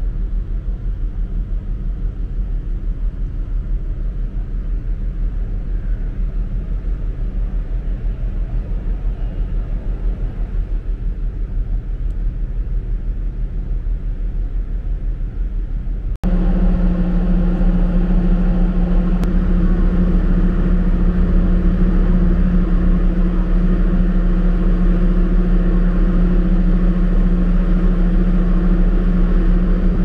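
Large car ferry's engines and machinery running with a steady low rumble, heard from the open deck. About halfway through the sound cuts to a louder, steadier drone with a clear low hum.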